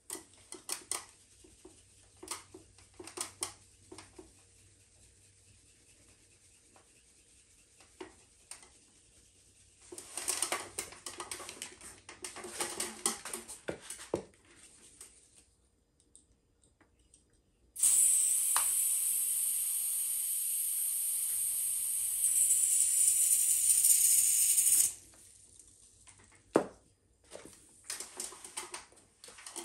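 Scattered light clicks and a few seconds of rustling, then a loud steady hiss lasting about seven seconds that starts and cuts off suddenly.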